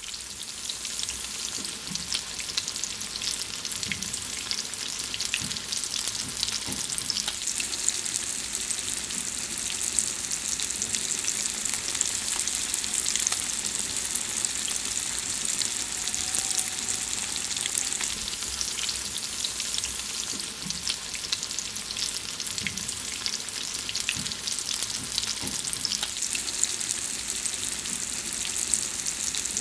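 Food frying in hot fat in a pan: a steady sizzle, thick with small crackles and spits.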